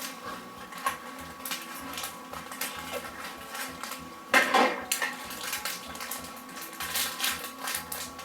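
A spoon stirring slime ingredients in a bowl, clinking and scraping against it in a steady run of small clicks, with one louder knock about four and a half seconds in.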